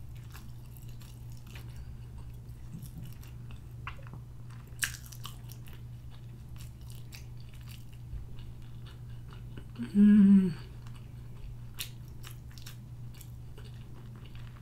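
Close-up mouth sounds of a person chewing boiled egg: soft wet clicks and smacks over a steady low hum. About ten seconds in, a short hummed 'mm' from the eater's voice.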